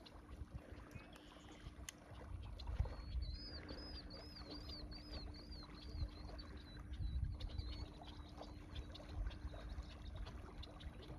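Faint steady rush of water welling up from an irrigation pump outlet, over a low rumble and a steady low hum. In the middle a small bird sings a quick run of about eight repeated rising-and-falling notes.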